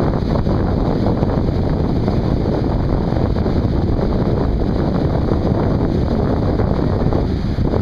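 Strong wind buffeting the microphone in a steady, loud low rumble, with the wash of breaking surf beneath it.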